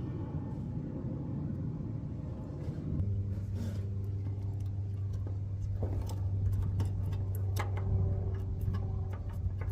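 A machine starts running about three seconds in with a steady low hum, with scattered clicks and knocks over it.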